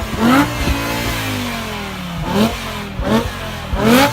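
BMW E60 M5's V10 engine on its stock exhaust, revved in four quick throttle blips, each snapping up in pitch and falling back toward idle.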